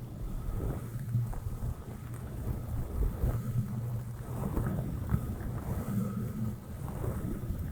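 Soft brush bristles stroking and swishing directly over a microphone, giving a continuous deep rumbling, scratchy rustle.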